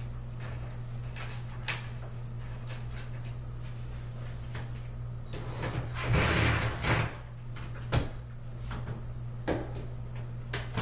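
Hardware and frame parts being handled during furniture assembly: scattered clicks and knocks, with a louder scraping rattle about six seconds in and a sharp knock just after, over a steady low hum.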